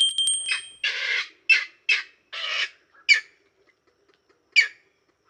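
Green heron giving harsh squawking calls: a quick run of four or five rough calls, then two sharper, shorter calls about a second and a half apart.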